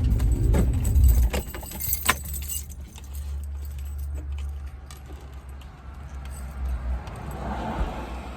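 Small metal pieces jingling and clinking as they are handled, thickest in the first two or three seconds, over a low rumble that drops away about a second in.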